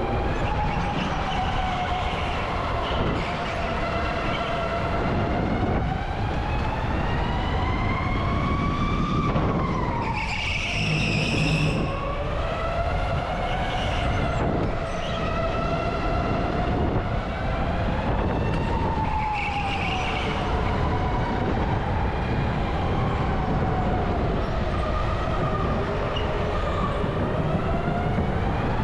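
Electric go-kart's motor whining, its pitch rising and falling with speed through the corners, over steady wind and tyre rumble. A brief higher squeal comes in about ten seconds in.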